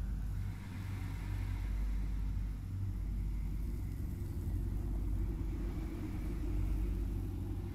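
Deep, steady rumble with a faint hiss above it, like a vehicle or wind rumble in a film soundtrack.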